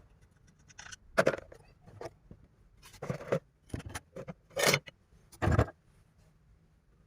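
Hand tools and chainsaw parts being handled: irregular scrapes and knocks, about six in all, with short gaps between them.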